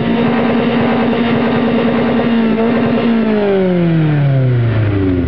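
MGF's four-cylinder Rover K-series engine held at high, steady revs through a loud modified exhaust for a decibel reading. About three seconds in the throttle is released and the revs fall away smoothly.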